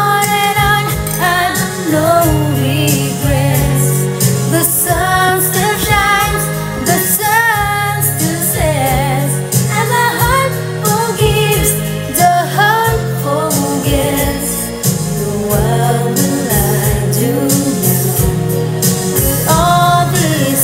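A song: a woman's singing voice, its held notes wavering, over instrumental backing with a steady low bass.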